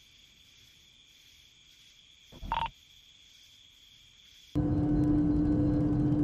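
Faint steady high hiss, broken about two and a half seconds in by a short electronic chirp from a walkie-talkie. About four and a half seconds in, a loud steady hum with a low held tone cuts in suddenly.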